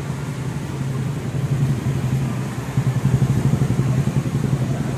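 An engine idling: a steady low hum over a rough rumble, getting a little louder about halfway through.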